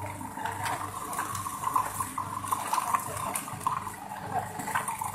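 A spoon scraping and stirring a chopped mixture inside a plastic food processor bowl, with scattered small clicks of the utensil against the bowl.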